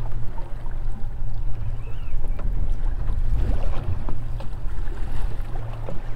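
Steady low hum of a boat sitting offshore, with water splashing against the hull and a few light ticks.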